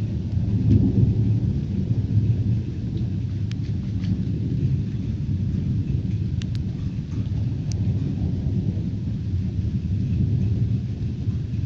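Thunder rumbling low and continuously, swelling about a second in, with a few scattered sharp ticks of raindrops.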